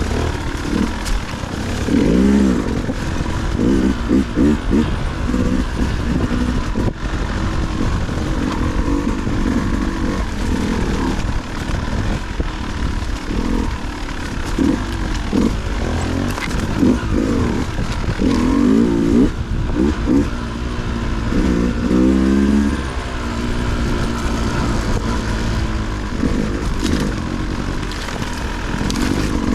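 Dirt bike engine being ridden hard off-road, its pitch rising and falling with the throttle, with repeated short revs as the rider picks through rough terrain.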